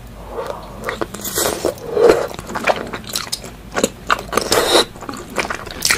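Close-up eating sounds of people eating with their hands: chewing, biting and lip-smacking in quick, irregular wet clicks, with fingers sucked clean.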